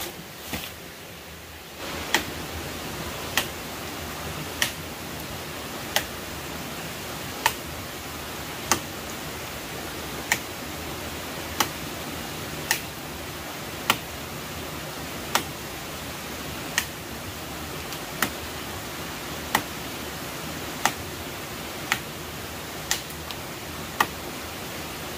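A large knife chopping into a palm trunk, one sharp chop about every second and a quarter, over the steady rush of a small stream cascade. One softer thump comes before the chopping starts.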